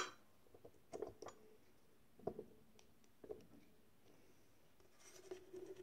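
Faint clicks and light handling of small metal button parts being fitted by hand onto the dies of a hand press. There is one sharp click at the start, a few softer clicks after it, and a brief rustle near the end.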